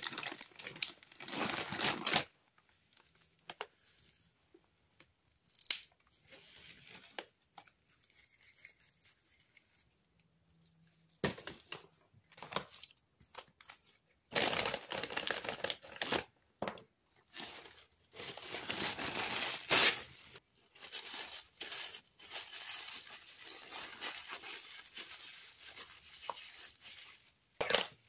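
Metallised plastic Cheetos snack bags crinkling and tearing as they are handled and pulled open. There is a short burst at the start, a mostly quiet stretch with a few clicks, and then a long run of crinkling and tearing from about halfway through until near the end.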